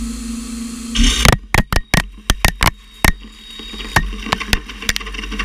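CNC mill spindle running with a steady hum, then about a second in the cutter crashes into the metal workpiece with a loud bang. A rapid run of sharp metallic knocks follows for about two seconds, then a few scattered knocks.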